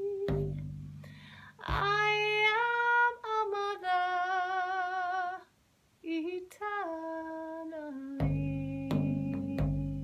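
A woman sings wordless held notes, one with a wavering vibrato, over a hand-struck frame drum whose deep ring and sharp strikes come in; there is a brief pause about six seconds in.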